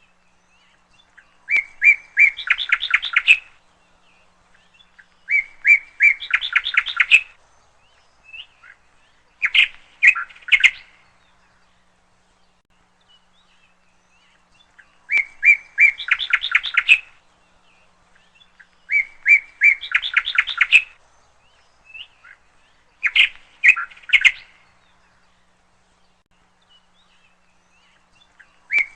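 A songbird singing the same short phrase over and over, about six times with quiet pauses between: a few clear notes leading into a fast, slightly rising trill.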